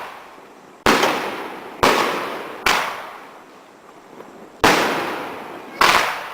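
Multi-shot firework barrage firing: five sharp bangs at uneven gaps of about one to two seconds, each dying away over about a second before the next.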